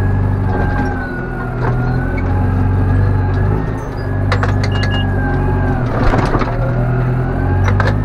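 Massey Ferguson tractor's diesel engine heard from inside the cab, working under changing load as the front loader lifts and dumps manure into a spreader. A high whine rises and falls over the engine, and a few sharp knocks and a clatter come about four and six seconds in.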